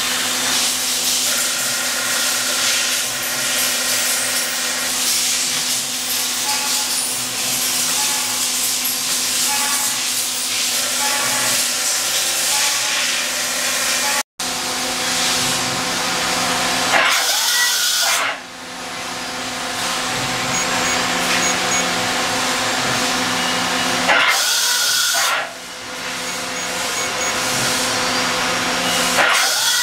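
CNC vertical machining center running under power, with the steady hum and whine of its motors and a haze of hiss. Tones switch on and off as the two-axis tilting rotary table turns and tilts. In the second half come three short, loud bursts of air hiss, each followed by a brief dip in the running noise.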